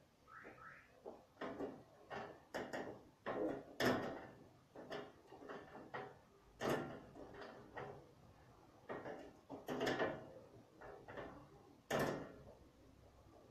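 A string of irregular knocks and bumps, like objects being handled and set down, the loudest about 4, 7, 10 and 12 seconds in.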